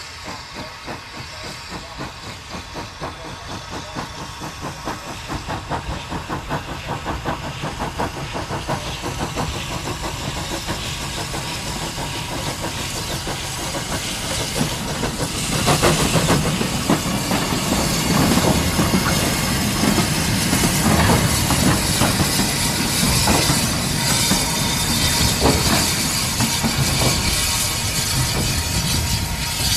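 Small saddle-tank steam locomotive, LMS 11243, an L&Y 'Pug', working with a brake van. Its regular exhaust chuffs grow louder as it approaches. From about halfway in it passes close, with steam hissing and the rattle and clank of wheels and motion over the rails.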